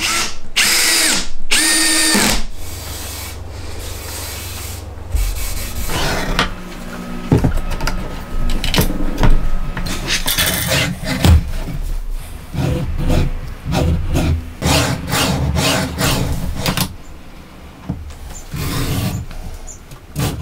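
Two short whirs of a power-tool motor near the start. After them come a low hum and a long run of irregular knocks, clatter and rubbing as the wooden sliding jig and its steel rods are handled and reassembled, ending with a wing nut being tightened.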